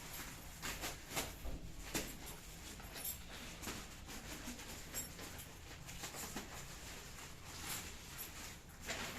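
Parcel packaging being opened by hand: plastic rustling and crinkling in irregular short crackles.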